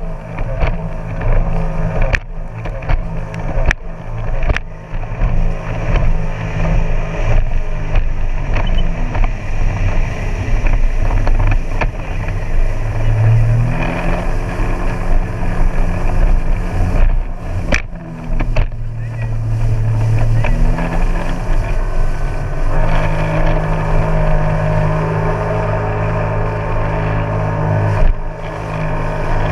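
Jet ski engine running on the water, its pitch rising and falling as it revs up and eases off a couple of times, then holding a steady higher speed near the end.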